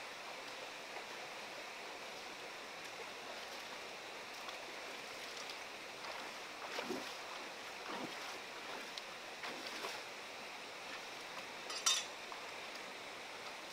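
Shallow stream running steadily over rocks, with feet splashing as someone wades through the water several times in the middle, and a sharper splash near the end as hands go into the water.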